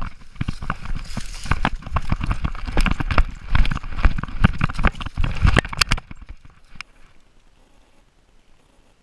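A chocolate Labrador running with a camera strapped to it: rapid, uneven thumps of paw strikes and knocks of the jostled mount. The thumping stops about six seconds in.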